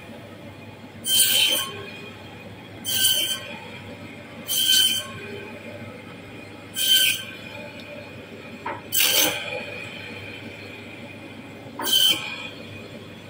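Meat band saw running with a steady hum, its blade screeching in six short bursts about every two seconds as it slices through a fish into steaks.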